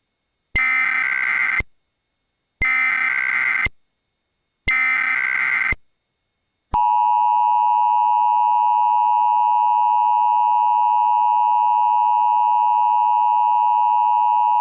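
Emergency Alert System tones in the style of a Sage EAS ENDEC (Model 1822): three short screeching SAME header data bursts with about a second of silence between them, then, about seven seconds in, the steady two-tone attention signal holding for about eight seconds. Together they mark the start of a Required Weekly Test.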